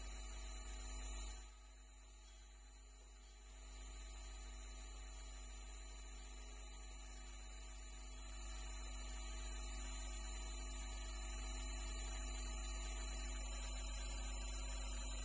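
Faint, steady electrical mains hum with a thin hiss, dipping quieter for a couple of seconds near the start.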